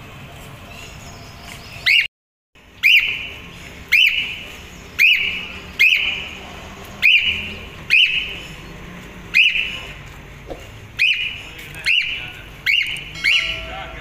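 Cockatiel calling repeatedly, a loud whistled contact call about once a second. Each call is a quick sharp note dropping into a short held whistle that fades. About a dozen calls, starting about two seconds in.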